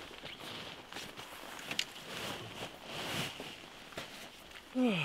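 Rustling and soft knocks of bags and gear being handled and shifted in a van's cargo area. Near the end a short, louder sound slides steeply down in pitch.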